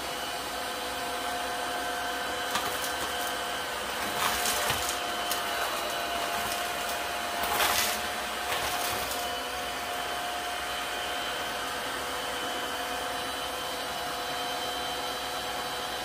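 Dreame H11 wet-dry vacuum running steadily, its motor giving an even whine over a rush of air, with two brief louder rushes about four and seven and a half seconds in.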